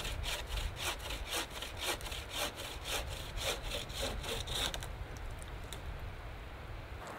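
Hand frame saw cutting through a log in quick, even back-and-forth strokes, rasping through the wood. The sawing stops about five seconds in.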